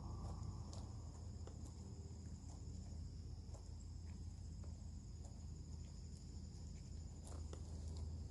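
Faint, steady high-pitched chorus of insects, with a few faint scattered clicks over it.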